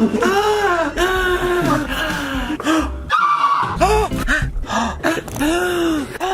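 A man's loud, drawn-out voiced gasps, about eight in a row, each one rising and then falling in pitch, cut tightly back to back.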